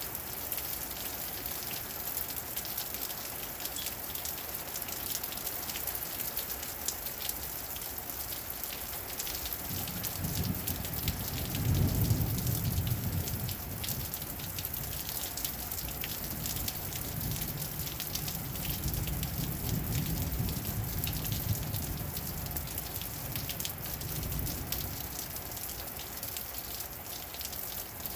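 Heavy rain falling steadily on pavement and ground, a dense hiss of many small drop impacts. About ten seconds in, a low rumble swells up, is loudest a couple of seconds later, and dies away over the next ten seconds or so.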